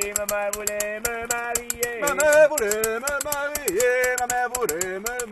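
Traditional French-Canadian folk song between verses: a wordless melody of long held notes that bend and waver from about two seconds in, over a fast, even rhythm of sharp high percussion clicks.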